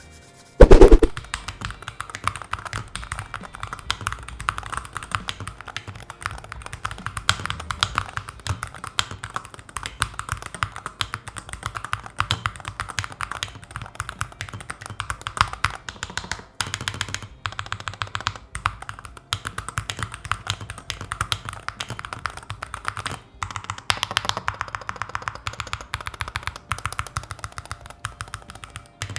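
Typing sound test on an Akko MOD68 HE magnetic (Hall effect) keyboard fitted with Astro Link switches: fast, continuous keystrokes with a few short pauses. Opens with one loud thump just under a second in.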